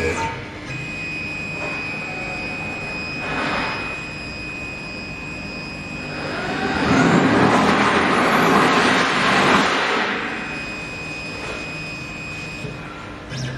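CNC router spindle running with a steady high whine while cutting wood, the cutting noise growing louder for several seconds in the middle before easing off.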